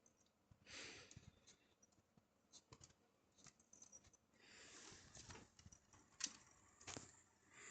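Near silence, broken by faint scattered clicks and two soft rustles, one about a second in and a longer one around the middle.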